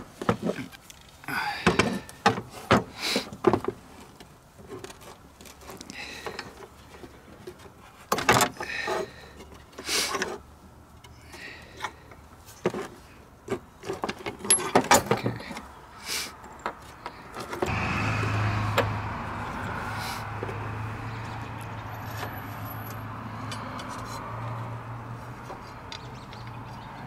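Metal clicks, taps and knocks of hand tools working a wiper transmission linkage clamped in a small bench vise, pressing out a worn bushing. About two-thirds of the way through, a steady engine drone with a low hum starts and runs on.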